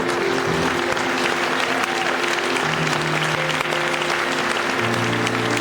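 Audience applauding over a live band playing an instrumental passage between verses of a pop song.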